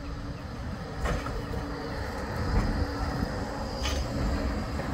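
Bombardier Flexity 2 tram running past close by, a steady low rumble that grows louder as it nears. Two sharp clacks about three seconds apart, and a faint high whine from about halfway.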